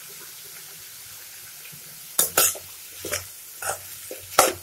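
Steel spoon stirring and scraping cauliflower around a metal pan: a steady faint sizzle of frying, then about five sharp scrapes in the second half.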